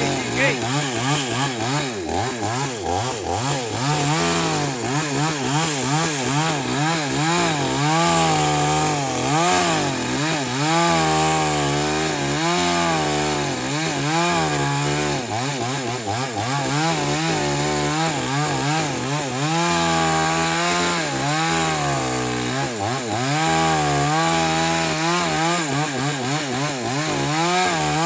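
Two-stroke petrol chainsaw with a 22-inch bar running at high revs, cutting wood, its engine pitch dipping and rising over and over as the chain bites and frees.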